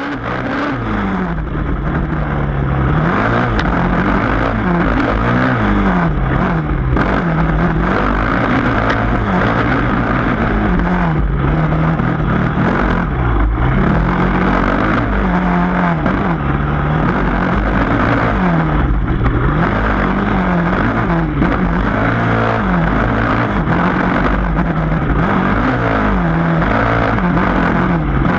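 Yamaha dirt bike engine revving up and down as the rider works the throttle climbing a dirt trail, its pitch rising and falling every second or two over a steady low rumble, heard from on the bike.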